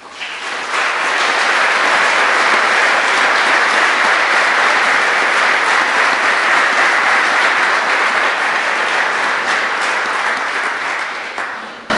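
Audience applauding, building up over the first second, holding steady, then tapering off just before the end.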